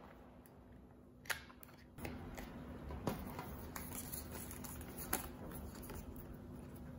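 Printed card bookmarks being handled and shuffled by hand, a soft rustle of card stock, with a few sharp clicks: one about a second in, others near the middle.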